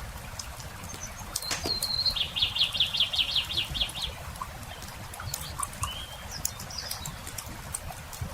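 Campfire crackling with scattered sharp pops, and a small songbird singing. A high note about a second and a half in runs into a quick trill of about a dozen falling notes lasting two seconds, and a couple of short chirps follow later.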